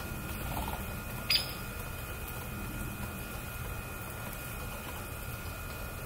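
A single short, sharp bird chip, a quick downward-sliding note, about a second in, over steady background noise.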